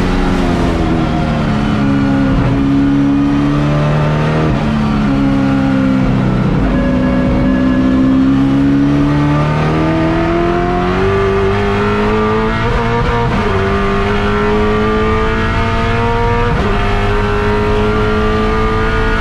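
Chevrolet Camaro Touring Car Masters race car's V8 engine at racing speed, heard from inside the cockpit. The engine note falls and climbs several times through the corners, then holds high along the straight with a sudden drop at an upshift about 16 seconds in.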